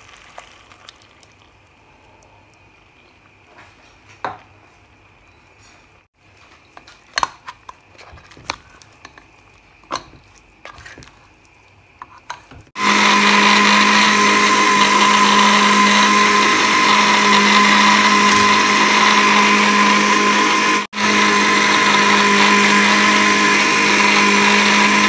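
A ladle knocks and scrapes lightly against a metal pressure cooker while meat is stirred. About halfway through, an electric blender starts and runs loud and steady, grinding a watery white mixture, with one very short break near the end.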